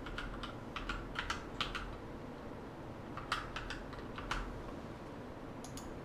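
Keystrokes on a computer keyboard in two short runs of quick clicks, the second starting about three seconds in.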